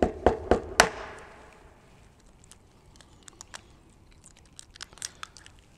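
Clicks and knocks of a cup being set down and an egg being handled on a wooden table, the loudest a little under a second in. Near the end a few faint crackles as the eggshell is cracked by hand.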